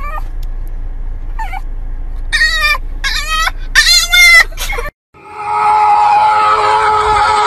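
Small white fluffy dog howling in a string of short, wavering yowls, loudest about four seconds in, over the low hum of a moving car. After a sudden cut, a loud steady high-pitched sound with several held tones fills the last two seconds.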